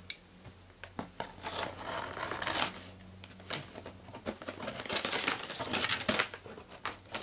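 Scissors cutting and scraping at the packing tape of a cardboard parcel, with clicks and bursts of tearing and crinkling at irregular intervals, busiest in the second half.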